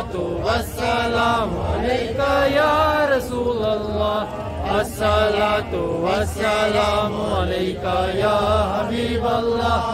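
A man chanting devotional verses over a handheld microphone, in continuous melodic phrases.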